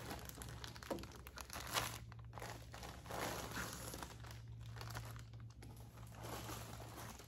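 Packaging crinkling and rustling in irregular handfuls as the packed contents of a box of flower bulbs are handled and opened, with brief lulls.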